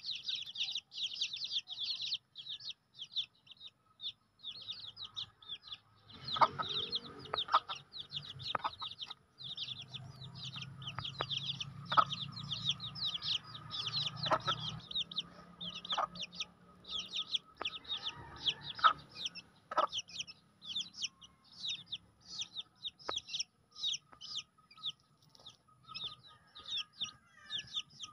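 Twenty-day-old chicks peeping without pause, many rapid high chirps a second. Through the middle stretch a hen clucks low beneath them, with a few sharp clicks.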